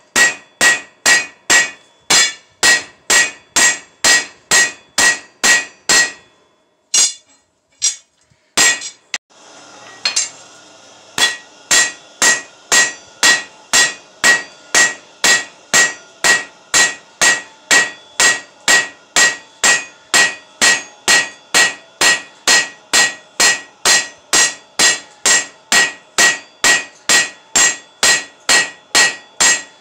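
Hand hammer striking a red-hot bar on an anvil in a steady rhythm, about two blows a second, each blow ringing. The hammering breaks off for a few seconds about six seconds in, with only a couple of lone strikes, then resumes a little faster.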